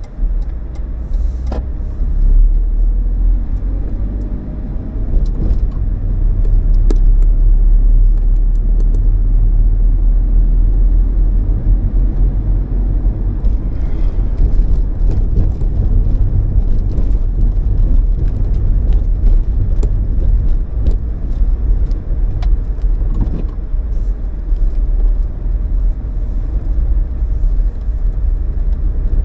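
Car being driven, heard from inside the cabin: a steady low rumble of engine and tyres, with scattered light clicks.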